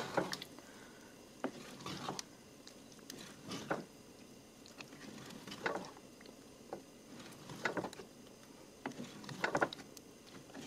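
A spoon stirring beans with melting cheese in a cooking pot, with irregular scrapes and knocks against the pot every second or two.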